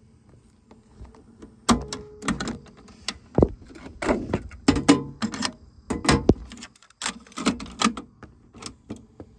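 Handling noise on a cassette deck: a long, irregular run of sharp plastic clicks, taps and knocks against its casing and controls, over a faint steady hum.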